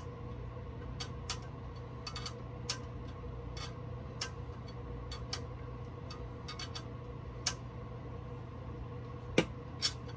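Irregular sharp metallic clicks and small knocks of a hand wrench working on a coolant-line fitting on a Detroit Diesel engine, about one or two a second, with a louder click near the end, over a steady low hum.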